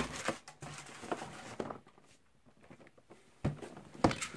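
Handling noise of a cardboard box and foam packing being moved about on a glass tabletop: scattered scrapes and knocks, then quiet for about a second and a half, then a few sharp knocks near the end.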